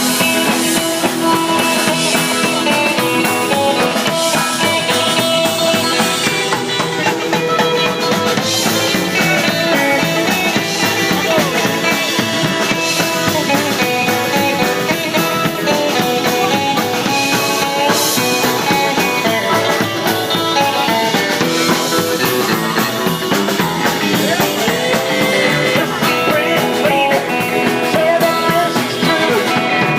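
Live rock and roll band playing an instrumental chorus: electric guitar lead over bass and drum kit.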